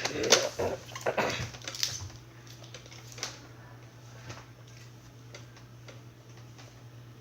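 Light clicks and knocks of a plastic Nerf gun with a flashlight taped to it being handled, most of them in the first two seconds and only a few after, over a steady low hum.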